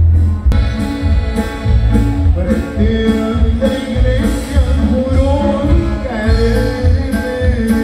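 Live band music with singing, played loudly through a stage sound system, over a strong bass beat.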